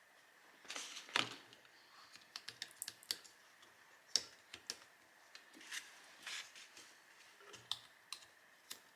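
Faint, scattered clicks and light taps of a small screwdriver, tweezers and tiny screws against an iPhone 6s's metal battery-connector bracket and casing, with a quick cluster of ticks a couple of seconds in.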